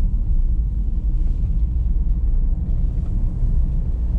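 Steady low rumble of a vehicle on the move, with wind noise.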